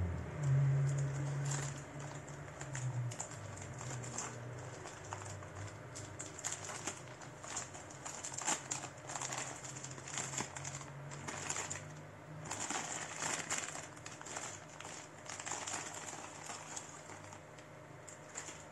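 Plastic packaging crinkling and rustling in irregular bursts as it is handled, over a low hum that is strongest in the first seconds and fades away about two-thirds of the way through.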